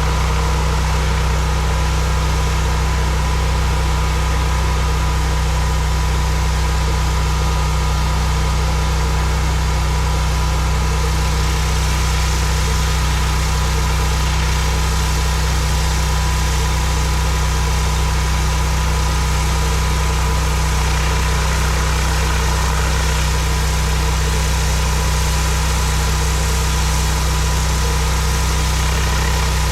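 Pressure washer engine running steadily under load, with a constant hiss of high-pressure water spray.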